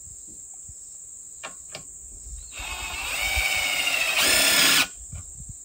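Cordless impact driver with a nut setter spinning a nut down a hex bolt: its motor whine rises for about a second and a half, then a louder, rattling half-second as the nut tightens, and it stops abruptly. Crickets buzz steadily behind.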